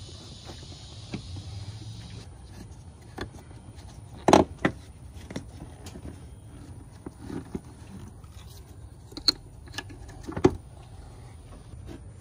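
Plastic air filter box and intake duct being fitted back into the engine bay: scattered clicks and knocks, the loudest a double knock about four seconds in and another sharp one near the end.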